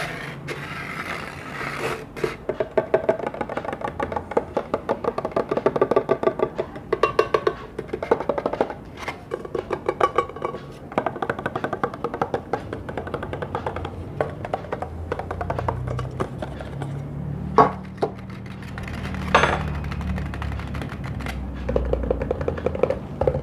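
Rapid tapping on hard objects in quick runs of strikes, then a few single sharp knocks near the end.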